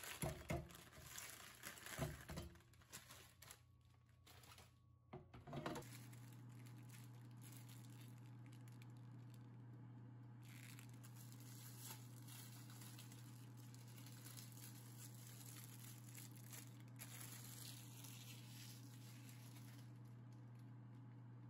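Plastic snack bag crinkling and rustling as frozen takoyaki are tipped out, with a few sharp handling noises. From about six seconds in, a faint steady low hum follows, like an air fryer's fan running.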